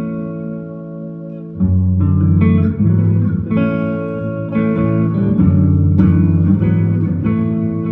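Guitar playing an instrumental passage of a song, with no singing; the playing swells louder about a second and a half in.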